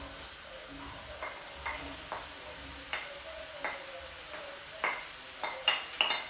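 Grated red pumpkin scraped off a plate with a wooden spoon into a pan of onion frying in butter: a low steady sizzle under a string of sharp clicks and taps of the spoon against the plate and pan, the loudest near the end.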